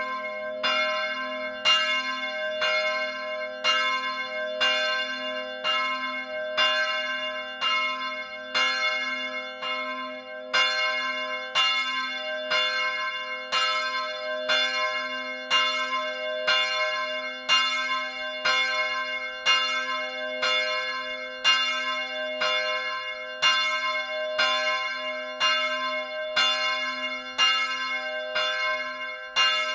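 Church bells swinging in a steel bell frame and struck by their clappers, heard up close in the belfry: strikes follow one another about once a second, some in quick pairs, each ringing on with a bright cluster of overtones over a steady low hum.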